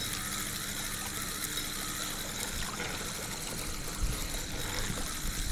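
A spinning reel being wound steadily, reeling in a fish after a bite, over small waves lapping on a stony shore. A low rumble joins in about four seconds in.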